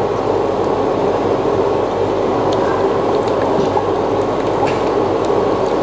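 Steady hiss of a saucepan of agar-agar mixture heating on an induction cooktop, with a few faint clicks as a silicone spatula stirs it.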